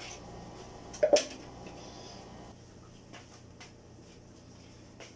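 A sharp metallic double knock about a second in, followed by a few faint clicks.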